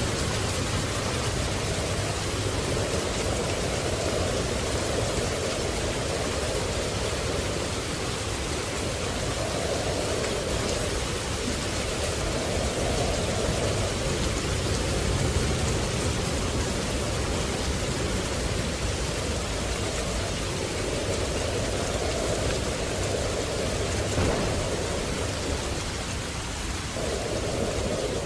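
Steady rain, its hiss swelling and easing every few seconds, with a low thunder rumble underneath and one short sharp crack about three-quarters of the way through.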